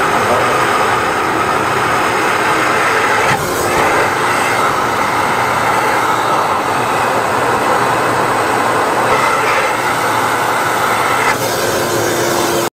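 Flex-shaft drain-cleaning machine running, its motor spinning a flexible shaft inside a corrugated sheath fed down a clogged urinal drain pipe to clear the blockage. A loud, steady mechanical whirring that stops abruptly at the very end.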